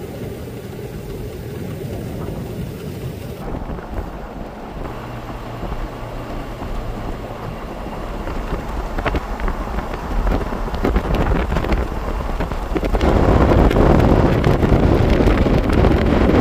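Road and wind noise from inside a moving car, a steady rushing rumble that grows louder over the second half and is loudest in the last few seconds.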